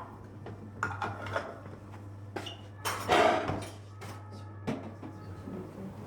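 Objects being handled, giving a string of light knocks and clatters with a louder, longer scrape or clatter about three seconds in, over a steady low hum.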